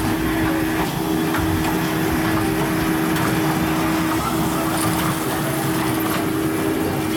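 Children's ride-on train's motor running with a steady hum as the train moves along its track, dipping briefly twice.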